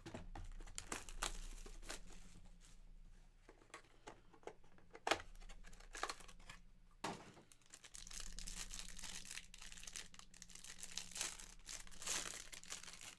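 Handling and opening a small cardboard trading-card hobby box and tearing into a card pack: irregular cardboard rustling and clicks, a sharp snap about five seconds in, then steady crinkling of the pack wrapper being torn open.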